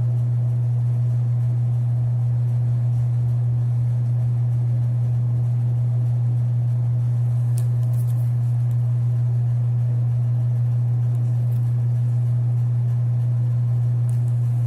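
A loud, perfectly steady low-pitched hum that never changes, with two faint clicks about halfway through.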